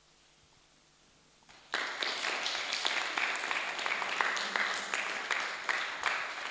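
Audience applause: a quiet room, then many hands start clapping together about a second and a half in and keep on steadily.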